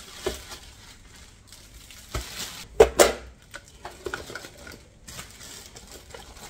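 Plastic food bags rustling as bagged food is handled and packed into a plastic storage crate, with a couple of sharp knocks close together about three seconds in and a few lighter ones after.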